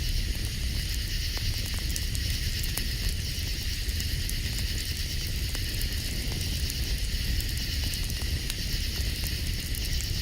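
Campfire burning with scattered small crackles and pops over a low, steady rumble, with a steady high-pitched night chorus throughout.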